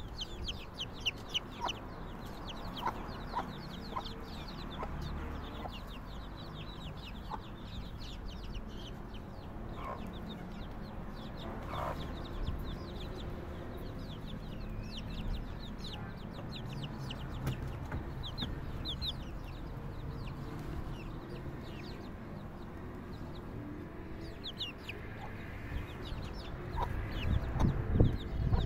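Baby chicks peeping over and over in short high falling notes while a hen clucks now and then. A few louder low thumps come near the end.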